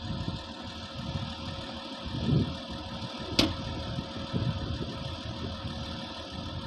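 Komatsu bulldozer's diesel engine running steadily at idle, with one sharp click about halfway through.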